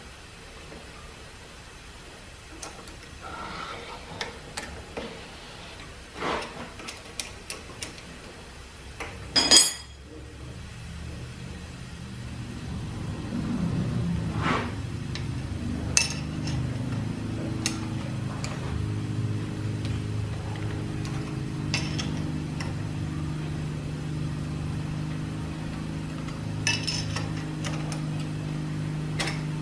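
Metal parts clinking and knocking against the cast-iron cylinder casting of a small vertical steam engine as it is fitted up by hand, with one sharp clank about ten seconds in. Then a steady low machine hum comes up and runs on.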